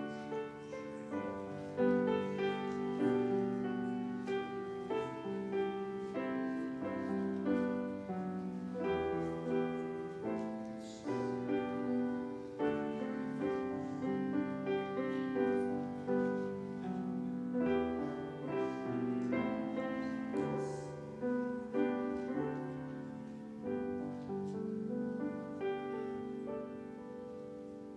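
Piano music: slow, sustained chords and a melody played throughout.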